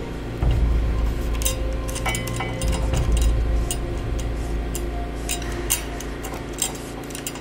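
Background music with sustained tones, overlaid by irregular light clinks and ticks.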